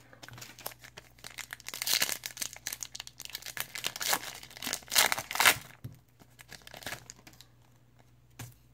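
A trading-card pack wrapper being torn open and crinkled: a dense run of crackles that peaks about two seconds in and again around five seconds, then dies away to a few faint ticks.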